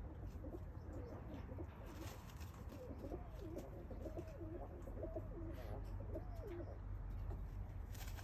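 Domestic pigeon cooing: a run of wavering, rolling coos lasting several seconds, which stops a little before the end.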